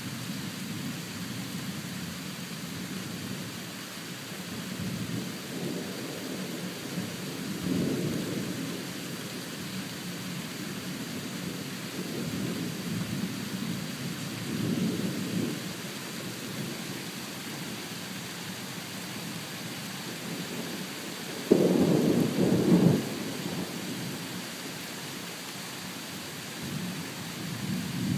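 Thunder rumbling several times over a steady hiss of rain, with one much louder thunderclap that starts suddenly about three-quarters of the way through and lasts a second or two.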